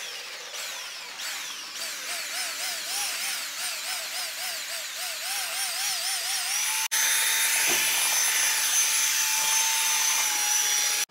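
Electric drill with a paddle mixer stirring self-levelling compound in a bucket as the powder is poured in. Its motor whine first comes in short pulses, each falling in pitch, then wavers up and down about three times a second as the load changes, and steadies. After a momentary break about seven seconds in it runs steady and louder.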